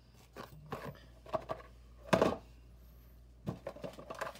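Handling noises of a small cardboard box and scissors on a wooden shelf: scattered light knocks and clicks, with one louder knock about two seconds in and a quick run of small knocks near the end.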